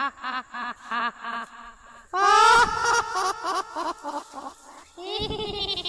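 A human voice in a rapid, quavering string of short cries, about four to five a second, like a bleating cackle or wail. About two seconds in it breaks into a loud rising shriek, and a second long cry follows near the end.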